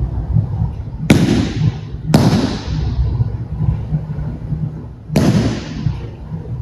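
Three sharp, echoing slaps on a dojo mat, about one, two and five seconds in, as an aikido partner is thrown down and pinned. Under them runs a steady low rumble.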